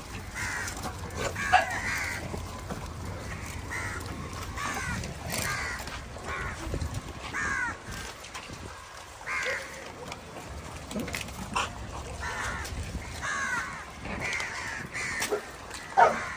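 Birds calling over and over in short downward-sweeping calls, about one a second and irregular, with a louder sharp call near the end.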